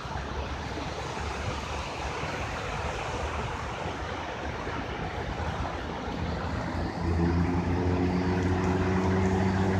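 Sea surf washing steadily on the shore. About seven seconds in, a steady engine hum comes in and grows louder over the surf.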